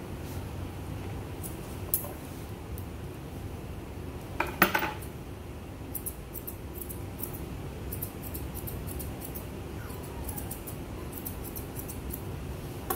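Grooming shears snipping through a Pomeranian's coat in quick, irregular clicks. One louder, sharper sound comes about four and a half seconds in.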